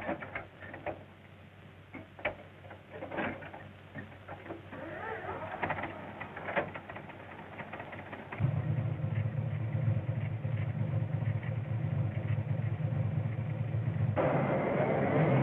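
An old car engine is started with a hand crank after its battery has gone flat. A few seconds of scattered clicks and knocks come first. About eight seconds in the engine catches and runs steadily, getting louder near the end.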